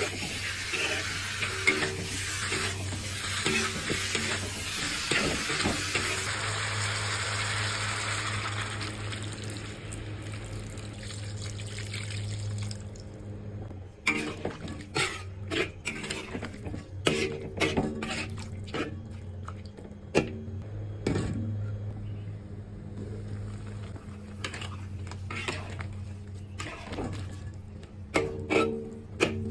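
Chicken stir-frying in a hot wok, a dense sizzling hiss as liquid is added, dying away about twelve seconds in. After that a metal spatula scrapes and knocks against the wok again and again as the chicken stews in the broth.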